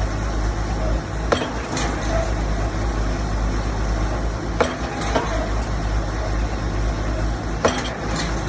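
Pile-driving rig at work: a heavy engine runs steadily under pairs of sharp knocks, two strikes about half a second apart, repeating roughly every three seconds.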